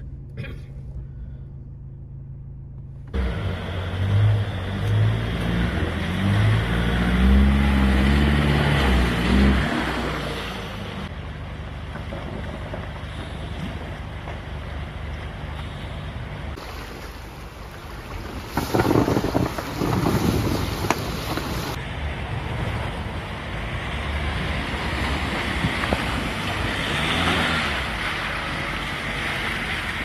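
Four-wheel-drive engine revving as the vehicle drives through a river crossing, followed by a steady rush of water and wind on the microphone, with louder bursts a little past halfway.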